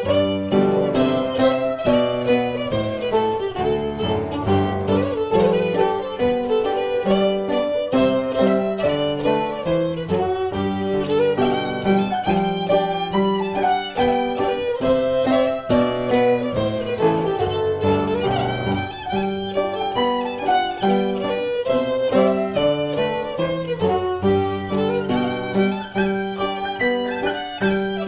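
Fiddle and upright piano playing a traditional Scottish tune in a steady stream of quick notes, the fiddle carrying the melody over the piano's chords and low bass notes.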